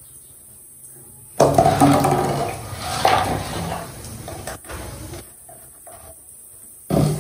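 Kitchen pots, dishes and metal utensils clattering and knocking, starting suddenly about a second and a half in, with another loud bout near the end.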